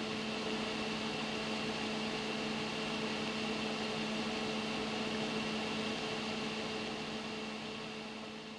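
Sony VPL-XW5000ES laser projector's cooling fans running steadily: an even whoosh with a low hum and a faint high whine, reading about 69 dB on a sound level meter held beside it. It fades out near the end.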